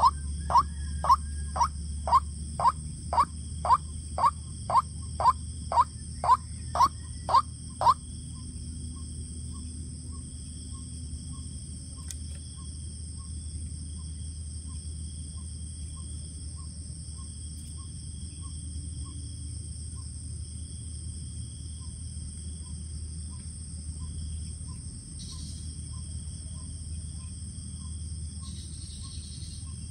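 White-breasted waterhen calling a run of loud, even notes, about two a second, that stop about eight seconds in; fainter pips at the same pitch keep going at a slower, even rate. A steady high-pitched insect drone and a low hum run underneath.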